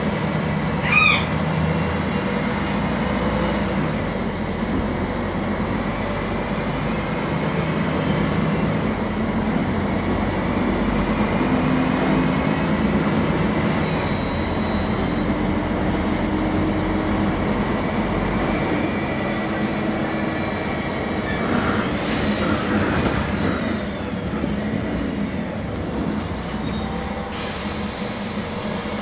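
Mercedes-Benz OM-457 LA inline-six diesel of an articulated city bus running under way, heard from inside the cabin, its engine note stepping up and down several times. There is a short squeal about a second in and a burst of air hiss near the end.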